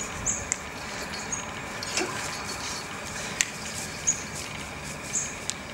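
Outdoor ambience: short high-pitched chirps repeating roughly once a second over a faint steady high hum, with a few sharp clicks scattered through.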